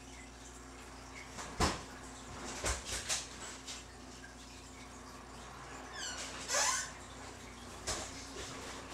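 Faint steady room hum with a few scattered knocks, the loudest about one and a half seconds in, and a short squeak about six seconds in.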